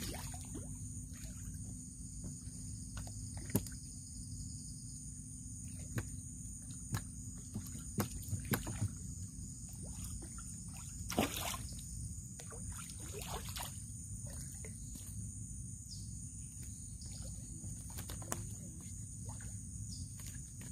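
Water lapping and sloshing around a small wooden canoe as a handline is worked over the side, with scattered light knocks. Insects buzz steadily in the background.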